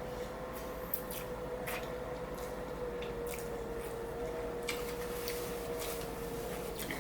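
Close-up eating sounds: chewing and wet mouth noises from someone eating a fish taco, with a few sharp clicks and crunches about a second apart. A steady faint hum runs underneath and stops just before the end.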